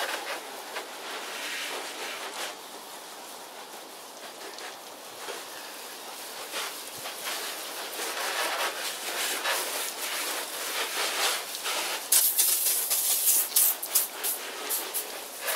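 Garden hose spray nozzle hissing as a jet of water rinses degreaser off a motorcycle's engine, frame and bodywork. About twelve seconds in the spray turns louder and more uneven, spattering against the bike.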